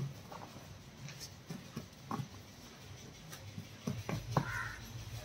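Soft, scattered taps and rustling of folded silk saree bundles being handled and set down on a woven mat.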